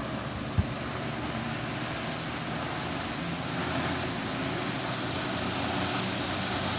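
Emerson 73648 16-inch brass-bladed table fan running steadily on medium speed: a constant rush of air over a low motor hum. A single short thump about half a second in.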